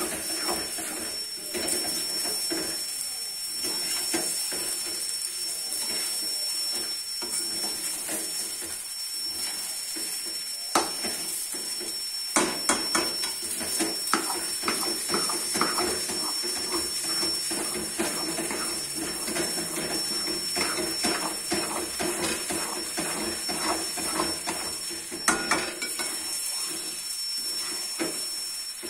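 Metal spatula scraping and knocking against an aluminium karahi as thick, grainy semolina halwa is stirred and turned, in many short irregular strokes over a steady hiss.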